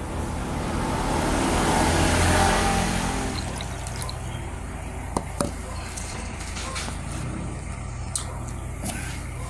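Liquid being poured from a cup into a ceramic bowl, a splashing pour that swells and then fades over the first three seconds or so. A couple of light tableware clinks follow about five seconds in.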